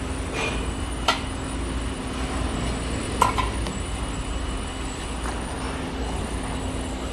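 Sliding carriage rolling along an aluminium-profile guide rail: a steady low rumble, with two sharp metal clacks about one and three seconds in.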